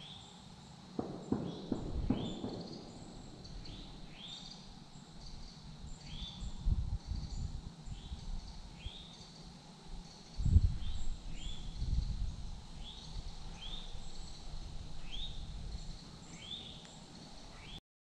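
Woodland ambience: a high chirp repeats about once a second, with low thumps about a second in and again around ten seconds in. The audio cuts off just before the end.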